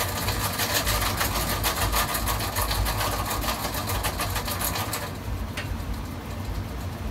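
Electric can seamer running with an aluminium beer can spinning on it while the seaming roller forms the seam on the lid, a steady machine noise with a fast, fine rhythm. It stops about five seconds in, followed by a faint click.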